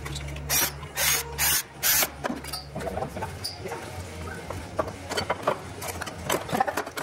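Four quick rasping strokes of a file deburring the edge of an aluminum angle bracket, a fuel tank support. Light clicks and taps follow as the part is handled and fitted.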